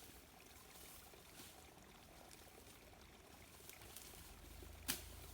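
Near silence: faint outdoor background hiss, with one short sharp click about five seconds in.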